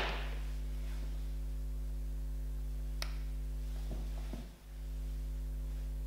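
Steady electrical mains hum with room tone, broken by one light click about three seconds in. The hum briefly drops out about four and a half seconds in and comes back.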